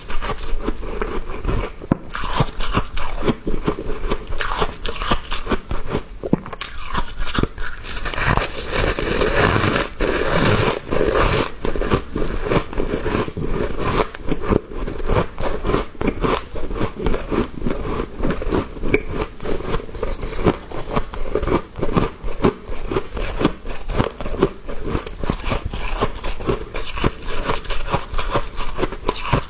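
Someone biting and chewing small soft, powdery ice chunks, a dense, unbroken run of crisp crunches.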